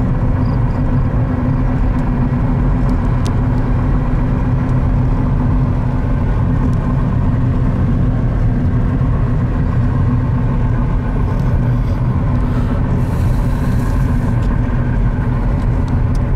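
Steady cabin rumble of a car being driven at a constant speed, engine and road noise heard from inside the car.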